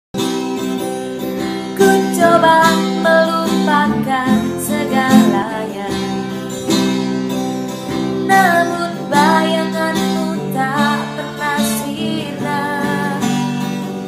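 A woman singing to a strummed acoustic guitar. The guitar starts alone, and her voice comes in about two seconds in.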